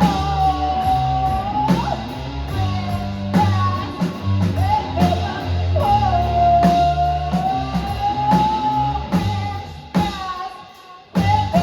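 Live rock band playing the end of a song: long held sung notes over guitar, bass notes and a steady drum beat. The music drops away near the end, then comes a final loud hit.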